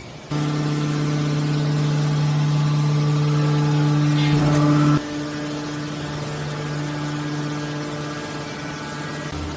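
Hydraulic power unit of a 315-ton scrap metal baler running with a steady hum. It comes on abruptly right at the start and drops to a lower level about five seconds in, with a brief scraping rustle just before the drop.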